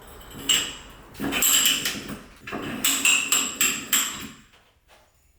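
Hand ratcheting pipe threader with a 1/2-inch die cutting threads onto the cut end of a pipe: bursts of ratchet clicking and metal scraping with each stroke of the handle, several strokes in a row, stopping about four and a half seconds in.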